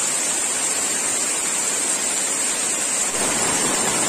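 Heavy rain falling steadily on palm fronds and foliage. About three seconds in the sound turns fuller as rainwater pours off the edge of a plastic sheet.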